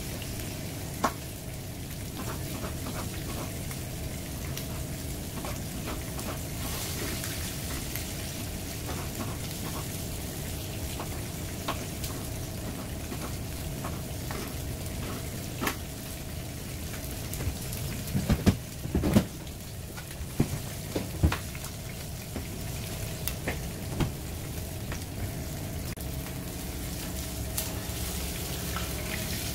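Whole sea bass shallow-frying in hot oil in a frying pan: a steady sizzle with scattered crackles of spitting oil. About two-thirds of the way through comes a cluster of louder pops and knocks.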